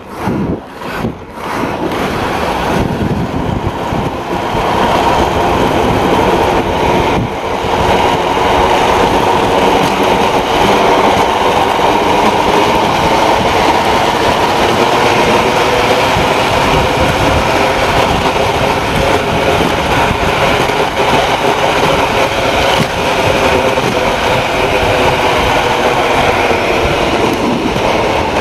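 Inline skate wheels rolling fast down an asphalt street: a few separate strokes at the start, then a steady rolling rumble with a hum from the wheels that builds over the first several seconds as the skater picks up speed downhill.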